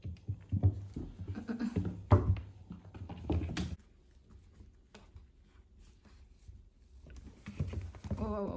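Kittens scuffling and tumbling together: irregular rustling and soft thumps that stop for a few seconds midway, then start again, with a brief cry near the end.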